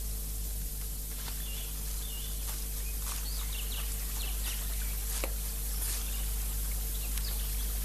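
Birds chirping in short, scattered calls over a steady background hiss and low hum.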